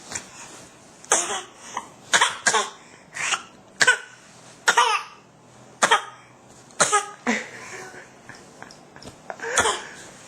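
A small child giving a string of short, deliberate coughs, about a dozen at uneven half-second to one-second intervals, some voiced, with a pause before a last cough near the end. He is practising a newly learned cough, not coughing from illness.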